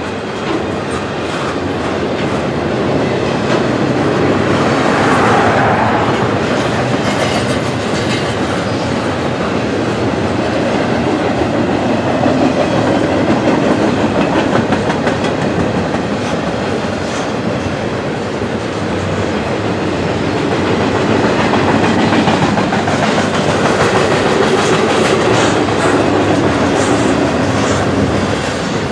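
Double-stack container cars of a CN freight train rolling past, a steady rumble with the wheels clicking and clattering as they cross the rail diamond.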